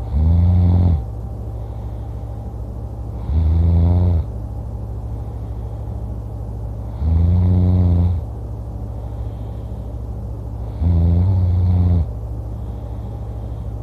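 A person snoring loudly in sleep: four deep snores about every three and a half to four seconds, each lasting about a second, over a steady low hum.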